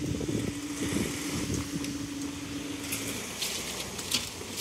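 Level crossing barriers rising to upright with a steady hum from the barrier mechanism, which stops about three seconds in as they finish. A car then drives over the crossing near the end.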